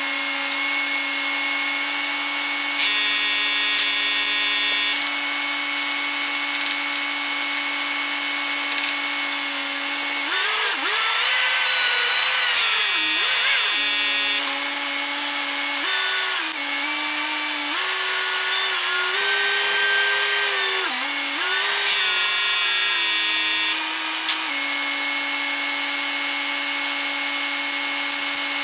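Truck-mounted crane's engine and hydraulics running with a steady whine, the pitch dipping and rising several times as the hoist and boom work. A higher whine joins three times for about two seconds each.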